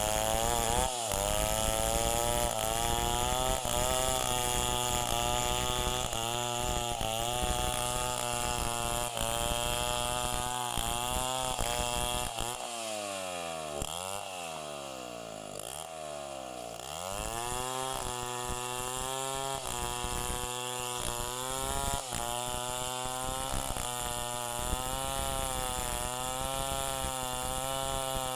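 Chainsaw engine running at high speed, its pitch wavering up and down as it works. About halfway through it slows and drops in pitch for a few seconds, then picks back up.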